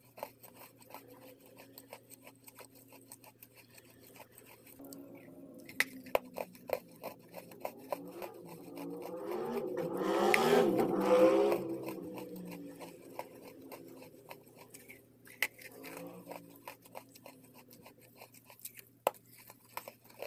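Close-miked biting and chewing of wet chalk coated in green chalk paste: sharp wet crunches and mouth clicks throughout, with a louder, pitched sound that swells and fades around the middle.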